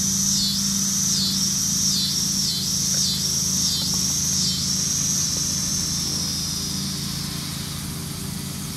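A high insect buzz swelling and dipping about one and a half times a second, then going steady and fading in the second half, over a steady low mechanical hum.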